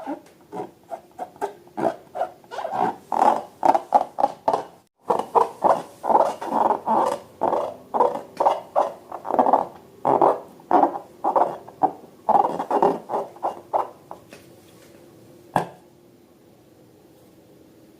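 Slime being handled by hand, making a fast run of short rubbing and squishing noises, about two a second, that stops about three-quarters of the way through. A single sharp click follows a little later.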